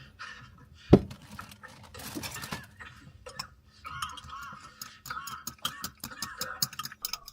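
Small clinks and clicks of dishes and cutlery, with one loud thump about a second in.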